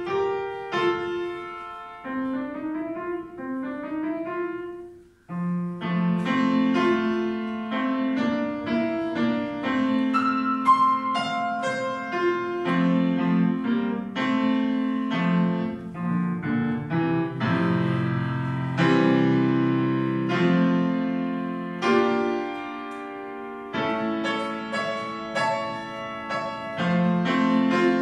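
Yamaha grand piano played solo: a light passage of short rising figures in the middle register, a brief pause about five seconds in, then fuller playing with low bass notes under the melody.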